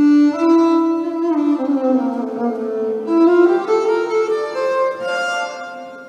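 Violin played with the bow: a slow phrase of held notes that steps down, then climbs back up and fades near the end.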